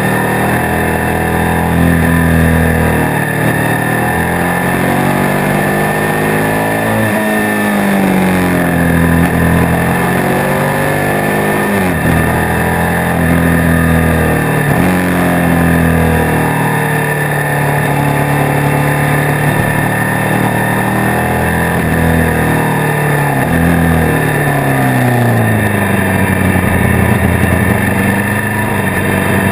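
Motorcycle engine heard from on the bike while riding mountain bends, its note repeatedly climbing as it accelerates and dropping back several times, with steady wind and road noise underneath.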